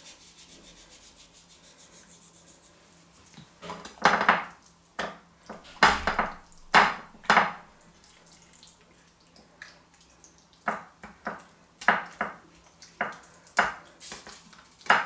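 Salt sprinkled from the fingertips onto raw hake steaks, a faint fine ticking at first; then, from about four seconds in, a string of short rubs and soft knocks as the wet hake steaks are turned and shifted against a glass baking dish.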